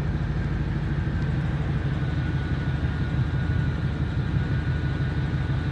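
Steady low rumble of an idling engine, with a faint steady high whine above it.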